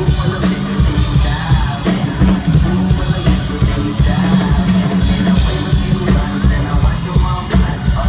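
Live pop-rock band playing at concert volume, with heavy bass and drums, heard through a phone microphone in the crowd; voices, singing or yelling, sit over the band.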